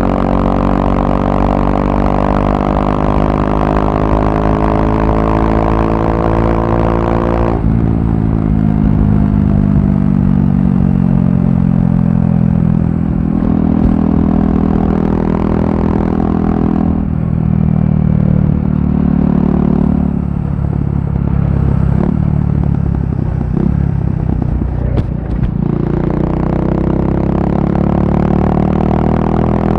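KTM RC390's single-cylinder engine through a barrel exhaust with the dB killer removed, pulling up steadily in revs, then dropping sharply in pitch about a quarter of the way in. The engine note wanders up and down for a while and climbs again near the end.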